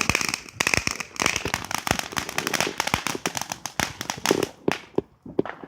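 Consumer firework crackling: a rapid, irregular run of sharp pops and snaps that thins out, with a brief lull about five seconds in.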